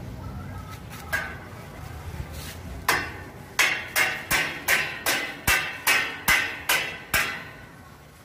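A hammer striking steel framing, about a dozen quick blows at roughly three a second, each with a short metallic ring, after a couple of lighter knocks.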